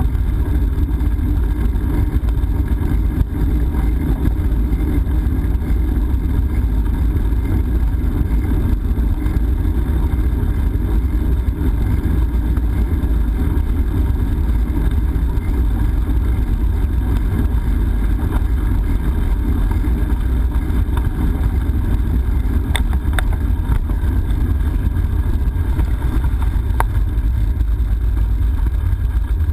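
Steady wind rumble over a GoPro action camera's microphone on a moving bicycle, heavy in the low end, with a few light clicks about three-quarters of the way through.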